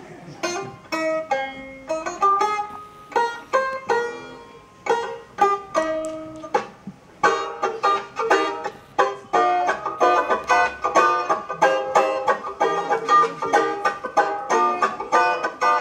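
Banjo played solo: spaced-out plucked notes and chords at first, then quick, steady picking from about seven seconds in.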